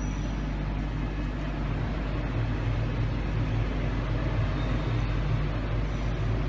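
Live-fish tank's pump and aeration running: a steady low hum under a hiss of churning water.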